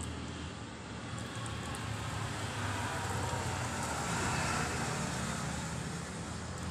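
A road vehicle's engine running and passing by, its noise swelling to a peak a little past the middle and then easing off.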